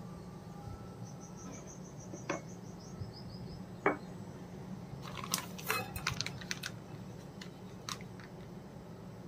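Quiet outdoor background with a steady low hum and short, rapid high-pitched chirping trills, broken by a few sharp clicks and then a cluster of clinks and clicks about halfway through, like dishes and utensils being handled.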